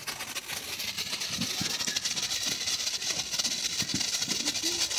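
TNT Lightning Flash ground fountain firework burning: a steady hiss of spraying sparks with fine crackling, growing slightly louder.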